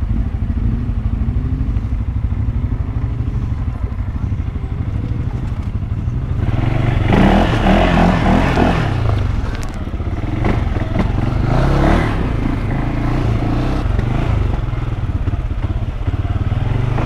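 CFMoto 600 cc ATV engine running at low speed over rough off-road ground, revving up hard about six and a half seconds in and again in shorter surges a few seconds later.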